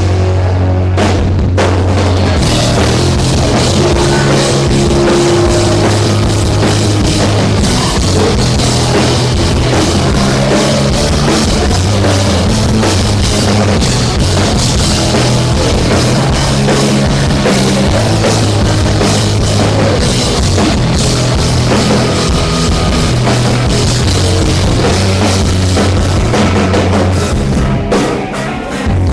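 Loud rock music with a full drum kit and held bass notes, playing steadily and dropping off briefly near the end.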